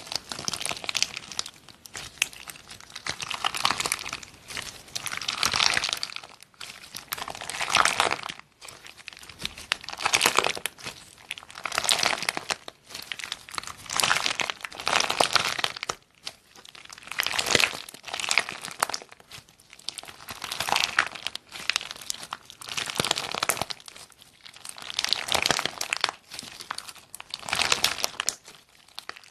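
Slime being squeezed and kneaded by hand, making a crinkling, crackling sound that swells and fades about every two seconds.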